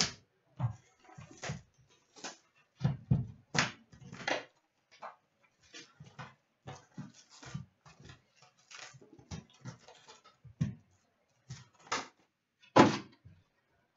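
Handling noise from an Upper Deck Series One hockey card box being unwrapped and opened and its foil packs laid out on a glass counter: irregular short rustles, scrapes and taps, one of the loudest about thirteen seconds in.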